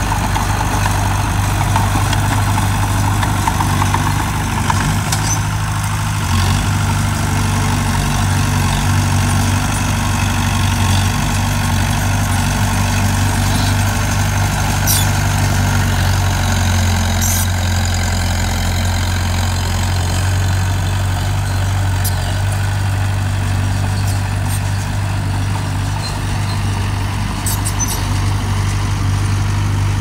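Diesel engine of earthmoving machinery (a mini bulldozer or a dump truck) running steadily at a low, even pitch, with a few faint clicks here and there.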